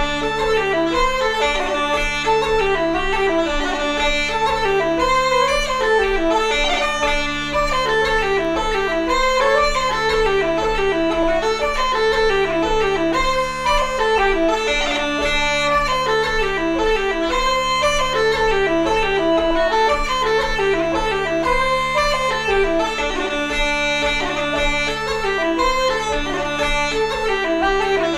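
An Irish jig played on wooden flute and uilleann pipes together. The pipes' drone holds steady under the running tune, and a lower accompanying tone cuts in and out about once a second.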